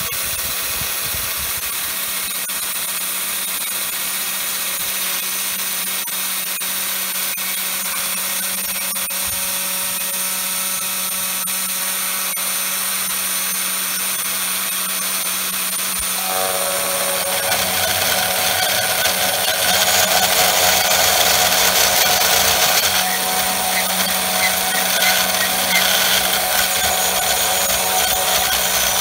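Desktop 3018 PRO CNC router running, its spindle whining steadily with a constant hum while the bit mills lettering into hard beech wood. The cutting grows louder from about halfway through.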